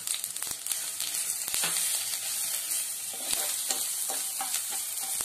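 Ginger-garlic paste sizzling in hot oil in a non-stick kadai during the tempering, with a steel spoon stirring it and scattered clicks throughout.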